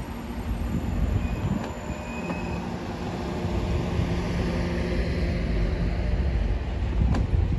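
TGV Duplex double-deck high-speed train rolling past along the platform: a low rumble of wheels and running gear with a steady hum, growing louder. A sharp click comes shortly before the end.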